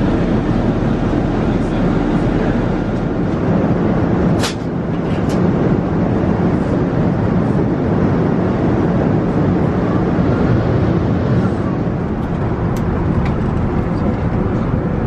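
Steady cabin noise of an Airbus A380 in flight: an even rush of air and engine sound, with a short click and a brief dip about four and a half seconds in.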